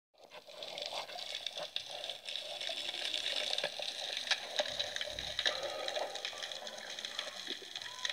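Underwater ambience in spearfishing footage: a steady watery hiss full of small clicks and crackles, with a brief low thud about five seconds in.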